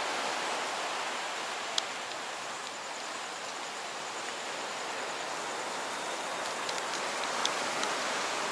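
Steady rushing noise, with a single sharp tick about two seconds in and a few faint ticks near the end.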